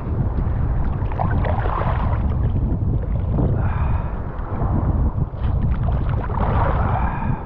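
Surf waves sloshing and splashing around a wade fisherman standing deep in the water, under heavy wind rumble on the microphone. The wash surges every two to three seconds as waves pass.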